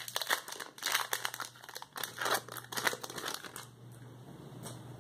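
Foil wrapper of a Pokémon TCG booster pack crinkling as it is pulled open by hand, in quick crackly bursts that stop about three and a half seconds in.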